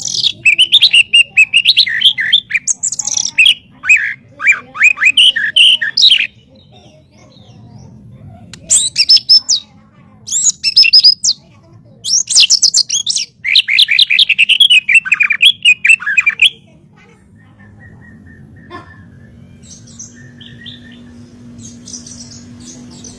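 White-rumped shama (murai batu) singing in loud phrases of rapid, sweeping, repeated notes, several bursts separated by short pauses. About two-thirds of the way through the song stops, leaving only a few faint calls.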